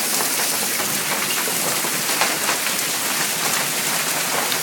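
Torrential rain falling steadily, a dense hiss of water with many small sharp hits all through it.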